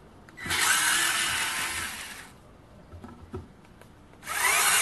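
WORX WX240 mini electric screwdriver driving a large Phillips-head PK screw into a pre-drilled wooden board. It runs in two spells of about two seconds each, the second starting near the end, with a pause and a couple of small clicks between.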